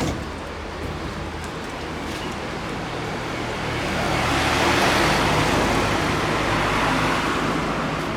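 A motor vehicle's engine running. Its noise swells to a peak about five seconds in and then eases off.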